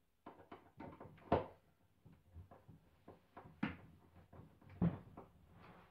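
Irregular knocks and clicks from hands working at concealed cabinet hinges on a particleboard cabinet, with three louder knocks spread through it.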